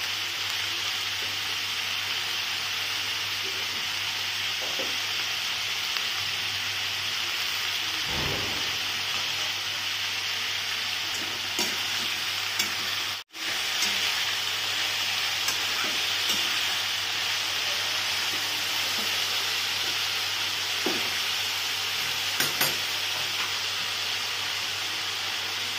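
Mixed vegetables sizzling steadily as they fry in hot oil in a kadai, with a metal spatula now and then clicking and scraping against the pan as they are stirred. The sound drops out for an instant a little past halfway.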